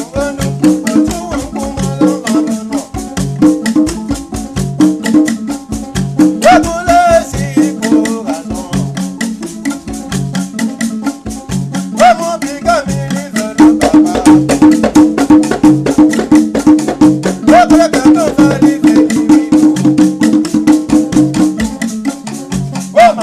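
Traditional music with shaken rattles keeping a fast, even beat over a low steady pitched part, with brief wavering higher calls now and then.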